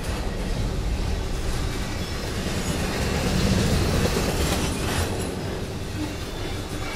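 Double-stack intermodal container train's well cars rolling past: a steady rumble and clatter of steel wheels on the rails, swelling a little around the middle.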